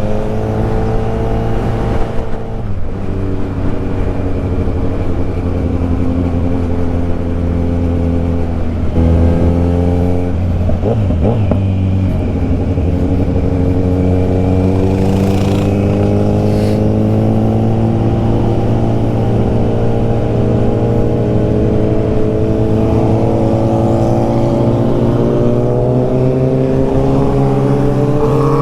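Sport motorcycle engine running under way, heard from the bike itself. Its pitch holds steady, changes briefly about nine to eleven seconds in, then climbs slowly near the end as the bike accelerates.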